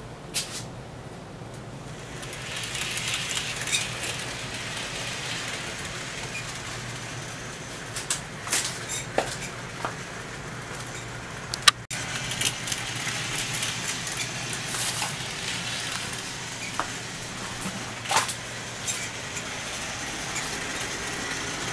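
Model steam locomotive pulling two passenger coaches around the layout track: a steady hum of the motor and rolling wheels that picks up about two seconds in, with scattered clicks.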